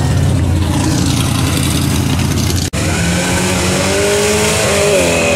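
Car engine at high revs with tyre-spin noise during a smoky standing-start launch. After a cut about three seconds in, a car accelerates hard from a launch, its engine pitch climbing steadily, with a brief dip near the end.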